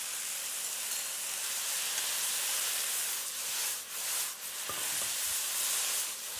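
Pad Thai sauce sizzling in a hot wok with rice noodles, a steady hiss, while a wooden spatula stirs and tosses the noodles through it in the second half.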